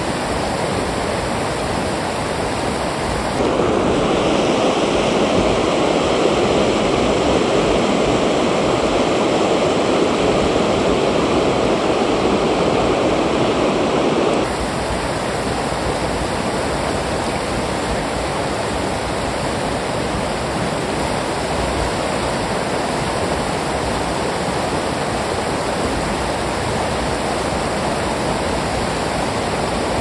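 Steady rush of a fast-flowing river. For about ten seconds, starting a few seconds in, it is louder and fuller, then drops back suddenly to the earlier level.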